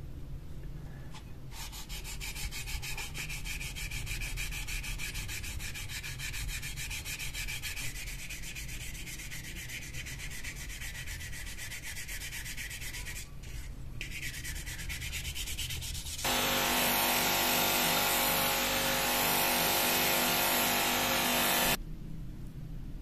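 Sandpaper rubbed over a knife blade in quick back-and-forth strokes, wet-sanding the blade. About sixteen seconds in, a louder steady hiss with a hum in it takes over and cuts off suddenly near the end.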